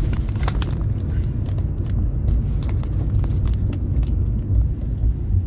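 Steady low rumble of a car driving, heard from inside its cabin, with a few light clicks in the first second or so.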